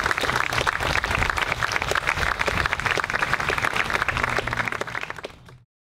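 Audience applauding, a dense patter of many hands clapping that fades near the end and then cuts off suddenly.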